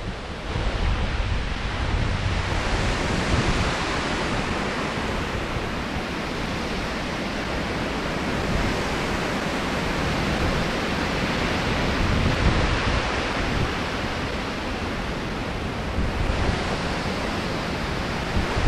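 Strong wind, about 30 miles an hour, rushing steadily with a low rumble of wind buffeting the microphone.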